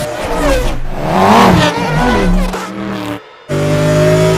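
Car engine revving, its pitch rising and falling about a second in. It breaks off briefly after about three seconds, then comes back as a steady engine drone.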